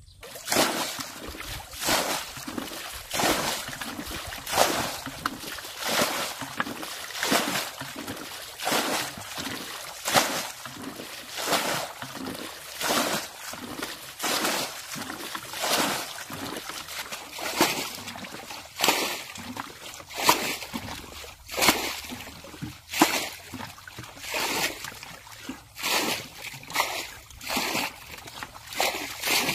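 Muddy water being bailed by hand with plastic buckets: repeated scoops and splashes as the water is thrown out, in a quick, fairly even rhythm of about three splashes every two seconds.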